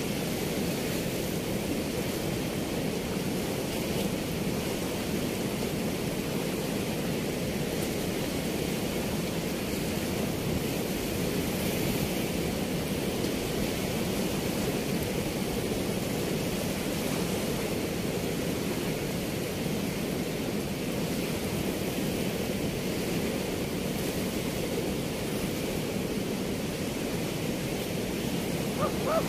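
Steady rush of river water pouring through the open gates of a weir, an even noise with no let-up.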